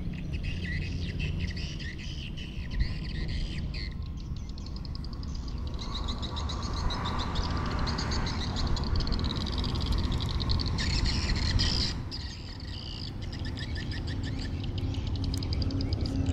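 Frogs and birds calling in a chorus of fast trilling pulses, over a steady low rumble.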